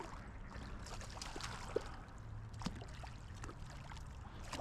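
Faint creek water running and trickling, with a few light ticks.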